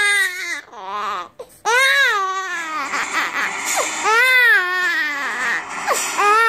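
Young infant crying: a series of loud wails about a second long, each rising and then falling in pitch, with short breaths between them.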